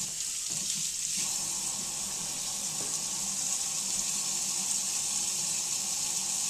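Kitchen faucet running steadily into a sink as hands are washed under the stream.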